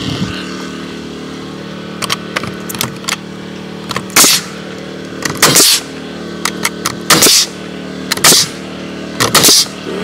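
Pneumatic nail gun driving nails through live-edge wood slabs into the barn framing: about six sharp shots, each with a quick hiss of air, from about 4 s in, with lighter clicks and knocks before and between. A motor hums steadily underneath.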